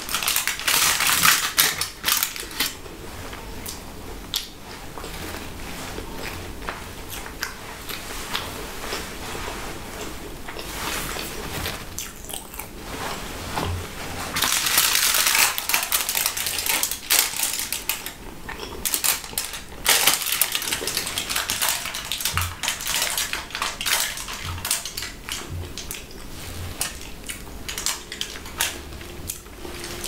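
Close-miked aluminium foil crinkling and rustling as a foil-wrapped piece of baked dessert is handled and peeled open, in three louder bursts near the start, around the middle and about two-thirds through, with small clicks and rustles between.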